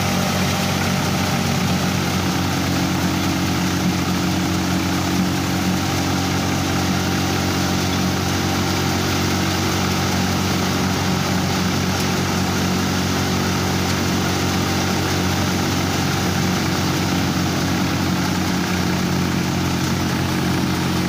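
Four-fan multi-crop cutter thresher running steadily under load: a constant mechanical drone with a low hum.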